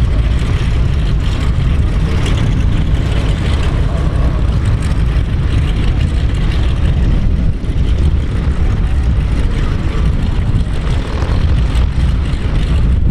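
Steady low rumble of a Boeing 747-8F freighter's four GEnx-2B turbofans on final approach.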